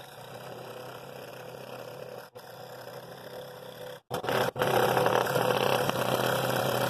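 Scroll saw running steadily, its number 9 modified-geometry Pegasus blade cutting through a thick, dense cherry board. The sound cuts out briefly twice and is louder after the second break, about four seconds in.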